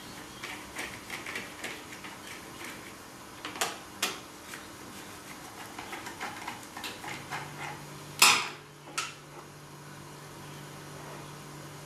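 Small clicks and taps of gloved hands working on the motor's electrical box of an electric wire rope hoist, metal and plastic parts knocking, with one sharp loud knock about eight seconds in and a lighter one just after. A faint low hum sets in about seven seconds in.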